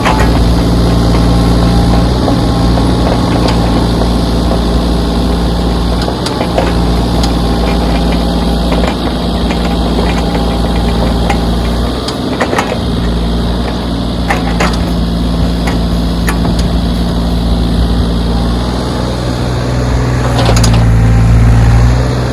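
Backhoe's diesel engine running steadily under work, with scattered short knocks. The engine grows louder for a moment near the end.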